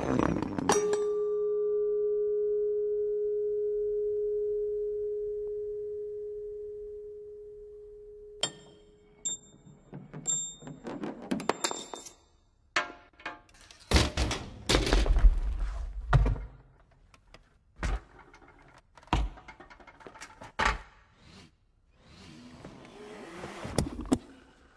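Car parts knocking, rolling and clinking against one another in a chain reaction. A struck metal part rings with one steady tone that fades over about eight seconds, then comes a run of sharp clicks and clinks, several heavy thuds, and a rushing slide near the end.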